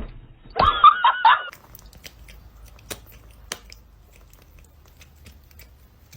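A cat's brief high-pitched meow with a wavering pitch, starting about half a second in and lasting about a second, followed by faint scattered clicks and taps.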